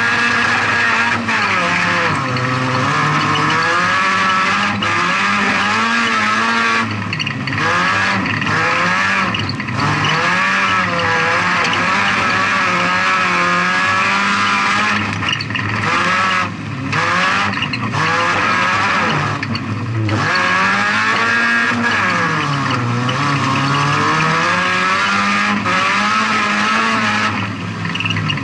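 Volkswagen Polo 16V stock car's 1.4-litre four-cylinder engine running hard, heard from inside the stripped cabin. Its pitch rises and falls over and over as the driver accelerates and lifts off, with short dips where the throttle closes or a gear changes.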